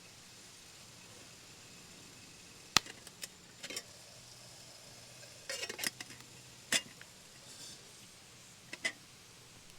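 Several sharp clicks and clinks of small hard objects being handled, a cluster of them in the middle, over a faint steady rush.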